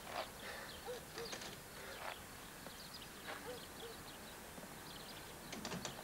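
A bird cooing in short pairs of low notes, twice, with a few light knocks.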